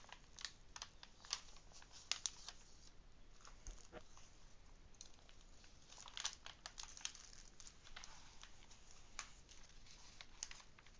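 Plastic protective film being peeled back and handled on a diamond painting canvas, giving faint, irregular crinkling and crackling.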